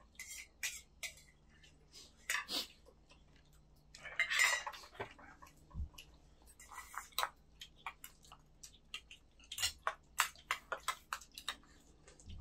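Spoons and chopsticks clicking and clinking against bowls and pans during a meal, in an irregular run of short clinks with a brief scrape about four seconds in.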